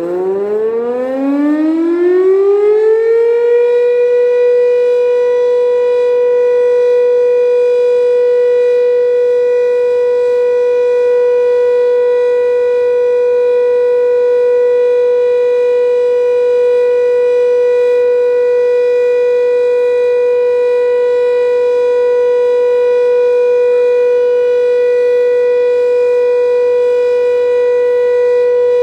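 The volunteer fire station's motor-driven siren winds up in a rising wail that settles about three to four seconds in, then holds one loud, steady tone. The long, unbroken tone is the commemorative signal for the Warsaw Uprising anniversary.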